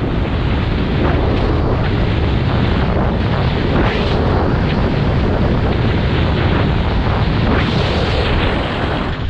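Heavy wind buffeting the camera microphone while riding downhill at speed: a dense, loud rumble.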